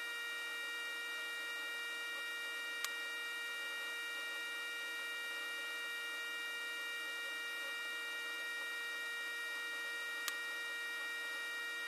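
Steady electrical hum and whine made of several fixed tones over faint hiss, with a short click about three seconds in and another near the end.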